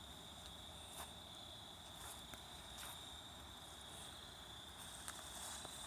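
Crickets trilling faintly, one steady high-pitched drone with no breaks.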